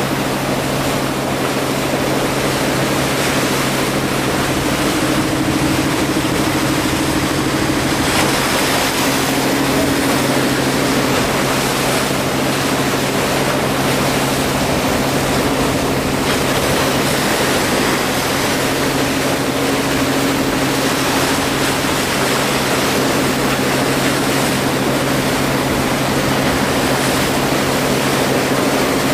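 Boat engine running at a steady pitch, with a steady rushing hiss of water over it.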